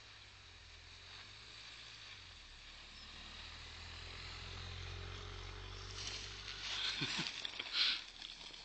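A small hatchback's engine running as it drives past at low speed towing a snowboarder, its low hum swelling and then fading. Near the end the snowboard hisses and scrapes over the snow as the rider slides by close, the loudest sound.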